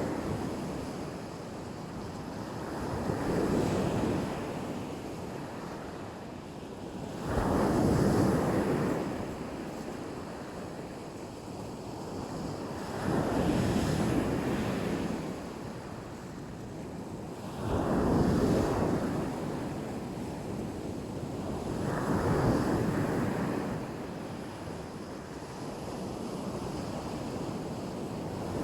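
Black Sea waves breaking on a beach: a surge of surf about every four to six seconds, falling back to a steady wash between them.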